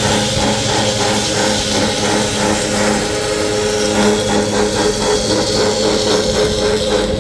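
Automatic metal-cutting machine's blade biting through a workpiece: a loud, steady cutting noise over the motor's hum, which stops abruptly at the end as the cut finishes.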